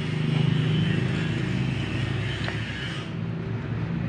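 A machine running steadily, giving a low, even hum.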